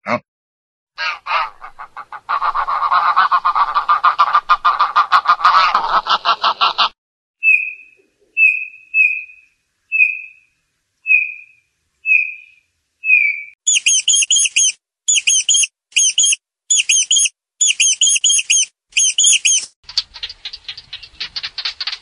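A run of different animal calls. First a rapid, harsh pulsing call lasts several seconds. Then a male bullfinch gives soft, short piping notes about eight times, each under a second apart, followed by quick clusters of high bird chirps and a dense rattling call near the end.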